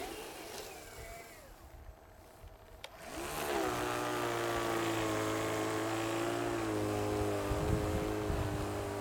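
Prototype single-stage R/C snow blower's motor spinning up a little over three seconds in, then running at a steady pitched whine while the blower throws snow.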